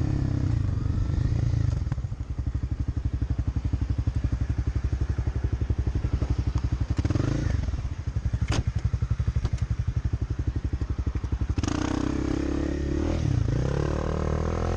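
Motorcycle engine running, then idling with a rapid even pulse, with a single sharp knock about eight and a half seconds in. Near the end the engine revs up, rising in pitch as the bike pulls away.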